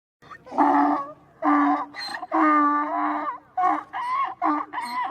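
Donkey braying: a run of repeated calls with short breaks between them.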